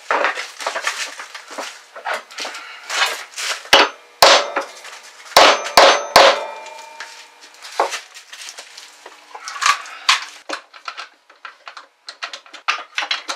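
Hammer strikes knocking a wooden joint together amid the clatter of wood and tools being handled. The loudest blows land about four and six seconds in, one leaving a brief ringing tone. Near the end come quick light clicks of a bar clamp being set and tightened on the work.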